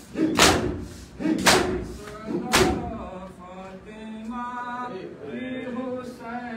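Many men beating their chests with both hands in unison (do dasti matam), three loud echoing slaps about a second apart. The beating then stops about three seconds in, and men's voices go on chanting the noha.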